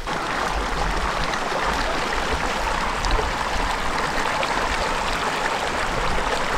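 Small mountain stream flowing over a shallow, stony bed: a steady rush of running water.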